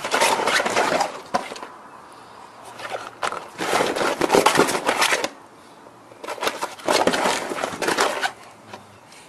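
English bulldog puppies' paws scrabbling on the plastic tarpaulin floor and sides of a dry folding dog pool: crinkling and crackling rustles in three spells, with quieter gaps between.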